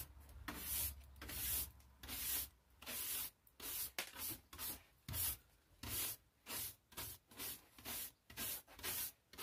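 Hand brush sweeping a plywood workbench top, with brisk repeated strokes about two a second.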